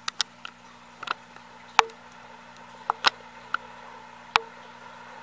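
Bearded dragon chewing a hornworm: about ten sharp, irregularly spaced clicks as its jaws work on the soft worm, the loudest about two seconds in and near the end.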